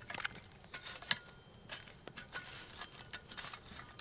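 A small metal shovel scraping and clinking as it scoops pine coals from a campfire onto a Dutch oven lid, in irregular light scrapes and clicks, the loudest about a second in.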